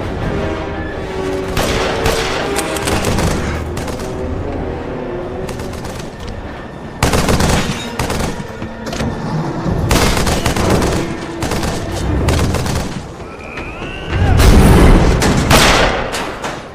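Film action soundtrack: repeated gunfire and blasts over an orchestral score, with a heavy, deep blast about fourteen seconds in as the loudest moment.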